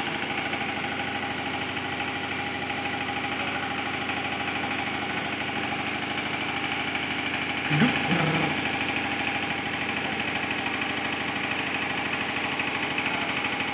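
Kubota diesel generator set running steadily. A short, louder sound cuts in a little past halfway.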